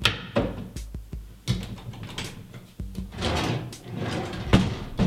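Bathroom vanity drawers being pulled open and pushed shut in quick succession: a string of sharp knocks, about two a second, with short sliding scrapes between them.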